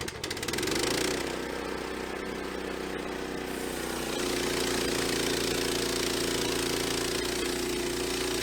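Gasoline engine of a portable band sawmill, just started and running steadily, then brought up to a higher, louder steady speed about four seconds in.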